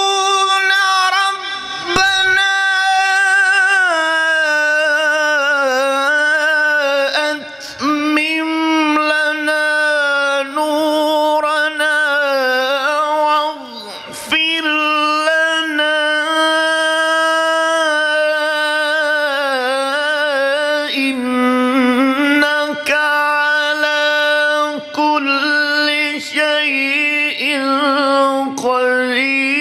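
Solo male melodic Quran recitation (tilawat): a qari's voice holding long, ornamented notes with wavering melismatic runs, with a few short breaks along the way.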